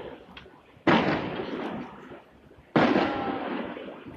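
Aerial fireworks exploding, two sharp bangs about two seconds apart, each trailing off in a long fading rumble.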